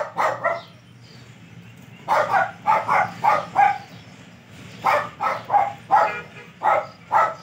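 An animal's short, sharp cries, about fifteen of them in three quick runs: three at the start, six from about two seconds in, and six more from about five seconds in.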